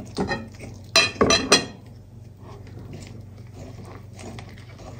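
Wire whisk working a thick flour, egg and milk batter in a bowl. In the first second and a half come a few sharp clinks of the whisk against the bowl, then softer, steady mixing.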